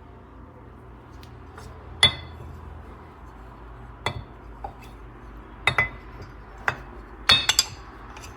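Hard parts clinking and knocking against each other as they are handled: about six sharp, ringing clinks, with a quick cluster of three near the end.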